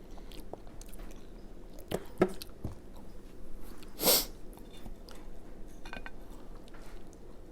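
A person chewing mouthfuls of tater tot casserole close to the microphone, with a few sharp clicks about two seconds in. A short, loud hiss comes about four seconds in.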